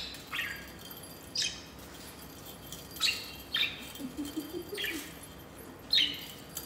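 Budgerigar giving short chirps, about six of them at irregular intervals over several seconds.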